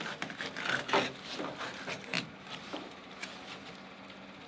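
Fillet knife slicing along a king salmon's backbone in irregular rough scraping strokes, which thin out after about two seconds.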